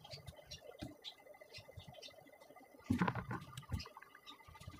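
Small metallic clicks and rattles as a fan's wire guard and its fixing nuts are handled and screwed on by hand, with a louder clatter about three seconds in.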